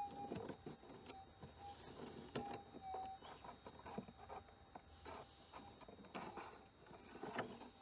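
A gold metal detector's steady threshold hum, with short target blips in the first few seconds as the coil is passed over the dig hole, checking whether the nugget is still in there. Scattered knocks and scrapes of digging in stony ground run through it.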